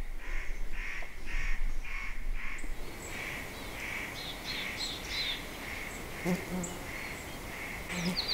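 Small birds calling in the forest: one repeats a short, even note about twice a second throughout. Higher quick chirps from other birds join in from about three seconds in, over a light steady hiss.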